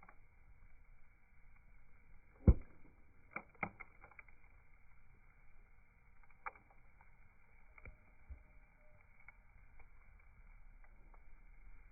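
Faint crackling of a wood bonfire: a few sparse pops, the loudest about two and a half seconds in and a small cluster a second later.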